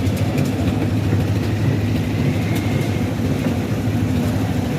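Heavy diesel engine of concrete-pouring machinery running steadily at constant speed, with a few faint clicks over it.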